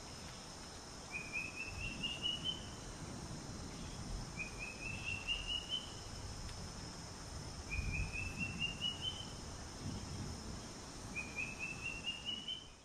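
A bird singing a short phrase of about seven quick notes that climb in pitch, repeated about every three seconds, over a steady high hum and some low rumbling.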